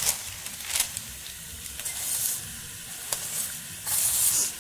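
Diced chicken, onion and garlic sizzling in olive oil in a pan, stirred with a wooden spoon, with a few sharp scrapes and clicks. The sizzle surges louder about two seconds in and again near the end as minced jalapeño is scraped off parchment paper into the pan.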